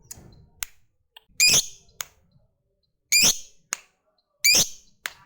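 Lovebird giving three loud, shrill squawking calls about a second and a half apart, with short sharp ticks between them.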